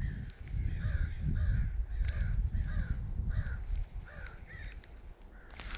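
A bird calling in a quick series of short, arched calls, about two a second, over a steady low rumble. A burst of crackling noise starts near the end.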